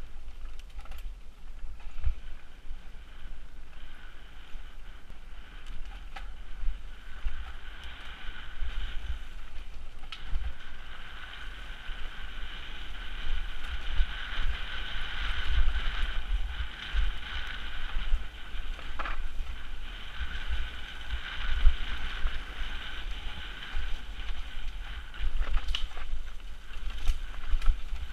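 A mountain bike running fast down a dirt singletrack: wind buffeting the camera microphone with a heavy rumble, tyre and frame noise, a steady high buzz through much of the ride, and scattered knocks from bumps.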